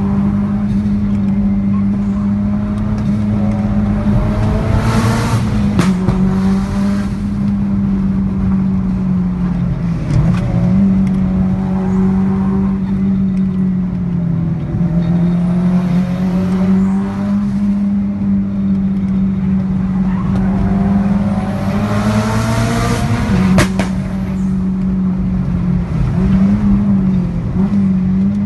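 Sports car engines revving up hard again and again over a steady low drone, with a few sharp exhaust pops. The pops come from the Lancer Evolution VIII.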